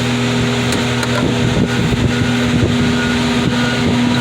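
Car crusher's engine and hydraulic pump running steadily with an even hum.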